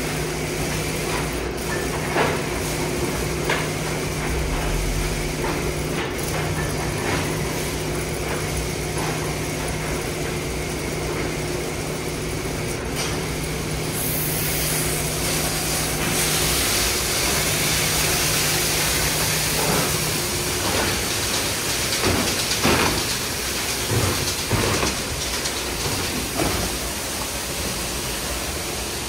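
Sonny's conveyorized tunnel car wash running: a steady hum of conveyor and pump motors with a low tone, joined about halfway through by a loud high hiss of water spray. Later there are a few knocks and thumps as the wash brushes work on the car, including rotating wheel brushes scrubbing a tyre.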